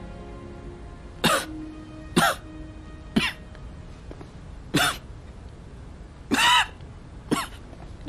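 A man coughing, six separate coughs about a second or more apart, over faint background music.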